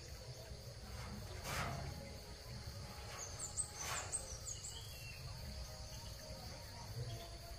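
Faint rural ambience: insects drone steadily at a high pitch, with a few quick bird chirps a little past the middle and two brief soft clicks.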